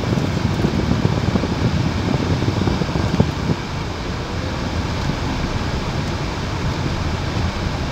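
Car interior noise while driving slowly: the engine and tyres rumbling over a cobblestone street. The rumble is rougher for the first three seconds, then settles a little quieter.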